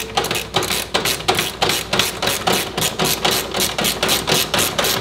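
Ratchet wrench with a socket clicking in quick, even strokes, about four or five a second, as a bolt on the mower's throttle cable bracket is turned.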